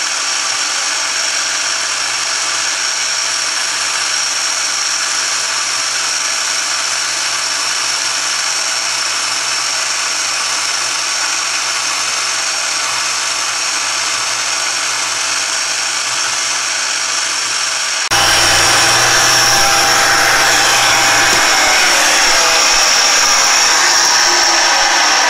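Pantograph engraving machine's spindle running with a steady high whine while its engraving cutter works a German silver dial blank. About 18 s in the sound steps up louder, with a low hum added for a few seconds.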